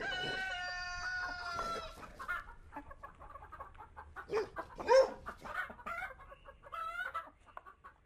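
A rooster crowing, one long held call over the first two seconds, followed by scattered short clucking calls from chickens.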